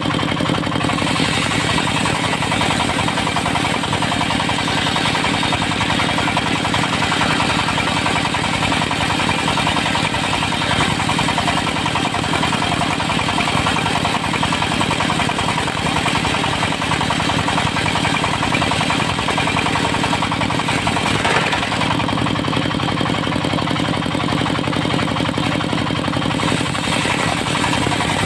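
Diesel-engine-driven circular sawmill running steadily with a rapid, knocking beat, with a brief change in the sound about twenty-one seconds in.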